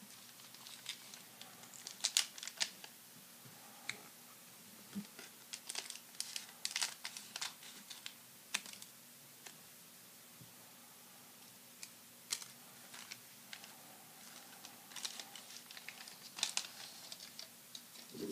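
1991-92 Upper Deck basketball card foil pack crinkling and tearing as it is opened by hand, in scattered clusters of crisp crackles and clicks; near the end the cards themselves are handled.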